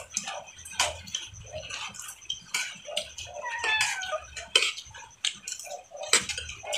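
Small clicks and smacks of a meal being eaten by hand off plates, with a short falling animal call about three and a half seconds in.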